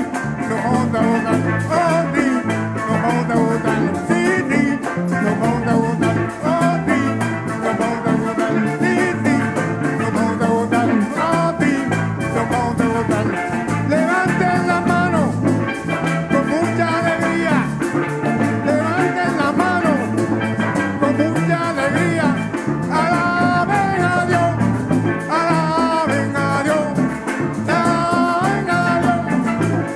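Church worship band playing an upbeat Latin-rhythm instrumental passage, with drums and a melodic lead line over a steady beat.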